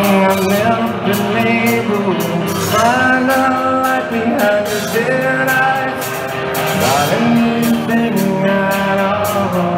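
Live rock band playing: a singer over guitar and drums, with drum and cymbal hits keeping a steady beat.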